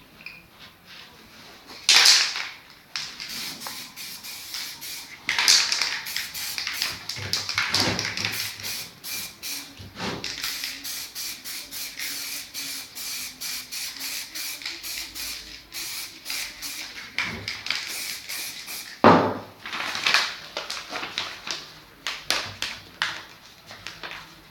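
Aerosol spray-paint can hissing in many short bursts, with a few longer, louder sprays about two seconds in, five seconds in and near the end.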